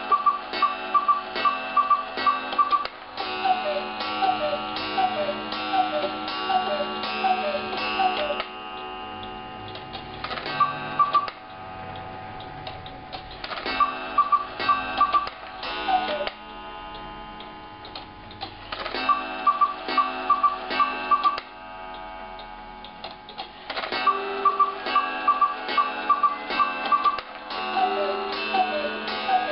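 Welby quail and cuckoo clock from 1950s Germany striking: the quail sounds four two-note whistled calls, then the lower two-note cuckoo calls count out the hour, with the clock ticking throughout. Then the quail strikes the quarters in turn: once, twice followed by a single cuckoo for the half hour, three times, and four times, with the hour cuckoo starting again near the end.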